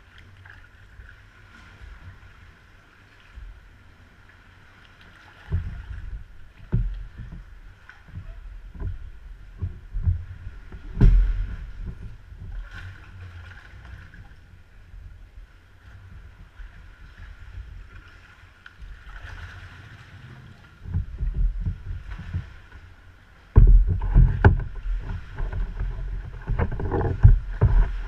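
Sea kayak being paddled through a sea cave: paddle splashes and water slapping and knocking against the hull in irregular clusters, busiest and loudest near the end, over a faint steady hiss.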